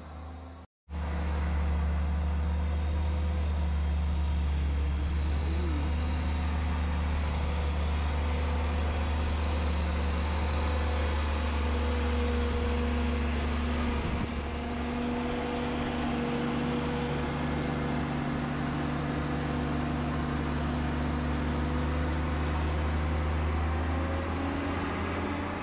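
An engine running steadily at constant speed with a deep low hum, starting after a brief break about a second in.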